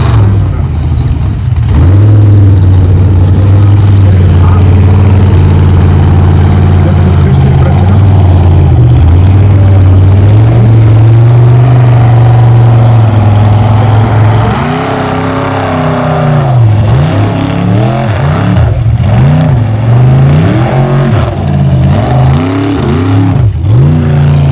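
Off-road race truck engine run hard at high revs. It holds a steady high pitch for about the first half, then revs up and down repeatedly in quick swoops.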